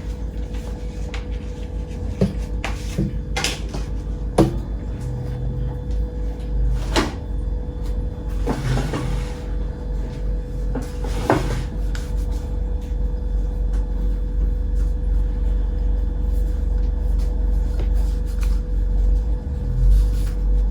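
Vintage Zippo lighter being handled: several sharp metallic clicks of the lid flicking open and snapping shut, and two longer rasps, over a steady low hum.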